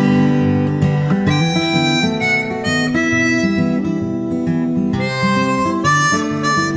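Instrumental music: a harmonica playing a melody in held notes over an accompaniment with a moving bass line.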